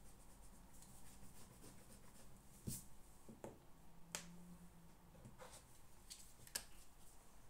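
Near-silent room with about half a dozen small, sharp clicks and taps from desk work while studying, such as handling a pen or stationery.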